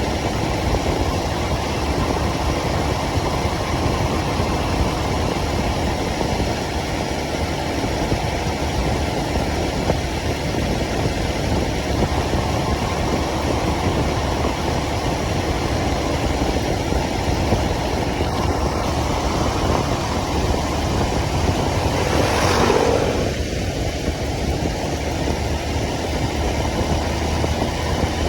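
Motorcycle engine running steadily while riding through city traffic. About three-quarters of the way through, a brief louder sweep falls in pitch.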